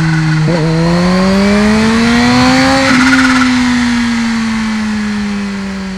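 Kawasaki Z H2's supercharged inline-four engine on the move: a quick shift about half a second in, then a steady pull with rising pitch, easing off about halfway so the pitch slowly falls as the sound fades.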